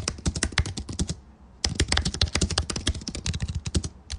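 Rapid keyboard typing clicks, about ten keystrokes a second, with a short pause just past a second in. It is a typing sound effect laid under the letter-by-letter text animation.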